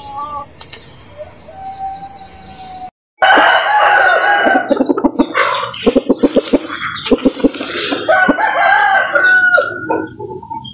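Chickens calling: a faint call in the first few seconds, then after a brief dropout a loud, busy stretch of rooster and hen squawks and clucks with rapid short pulses.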